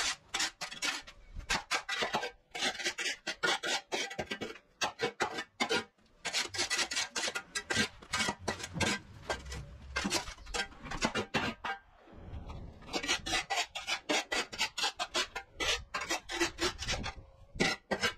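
Metal shovel blade scraping across a concrete path in rapid, repeated strokes, lifting off moss, grass and dirt, with a few short pauses.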